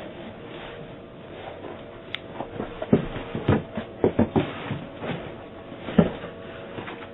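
Objects being picked up and handled: a run of irregular knocks and clatters, the sharpest about three and six seconds in, over the steady hiss of a doorbell camera's microphone.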